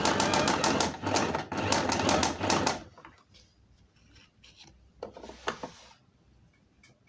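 Domestic sewing machine stitching an invisible zip: a quick, even run of needle strokes over the motor's hum, stopping about three seconds in. A brief rustle of the zip and fabric being handled follows about five seconds in.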